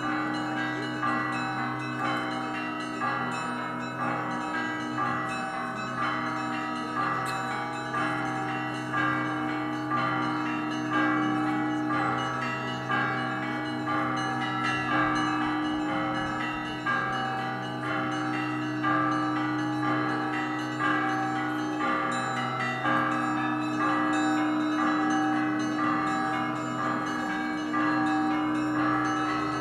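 Russian Orthodox monastery bells rung in a festive peal: a dense, rhythmic pattern of small and mid-sized bells struck in quick succession, with louder strokes about once a second. The deep tones of the large bells hum on continuously underneath.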